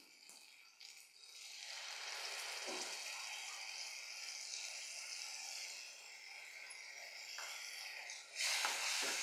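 Tamarind water poured into a hot pan of fried onion, tomato and garlic, sizzling with a steady hiss that sets in about a second and a half in. Near the end the sizzle gets louder as the mixture is stirred with a wooden spatula.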